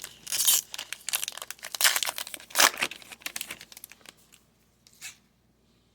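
Foil trading-card pack wrapper crinkling and tearing open, a dense crackle for about three seconds that thins out, then one light tap.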